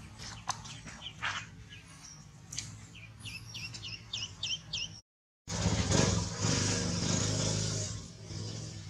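A duckling peeping in a quick series of short, falling chirps. After a cut, about two and a half seconds of louder splashing as a young monkey clambers in a metal pot of water.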